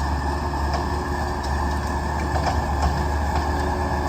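Diesel engine of heavy earth-moving equipment running steadily, a deep constant drone with no change in pitch.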